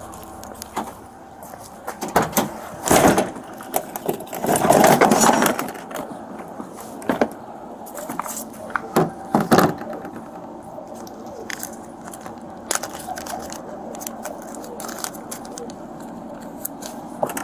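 Handling noise of a search: scattered clicks and knocks from a plastic tackle box and rustling of small plastic bags in gloved hands, over a steady outdoor background, with a louder rustle about five seconds in.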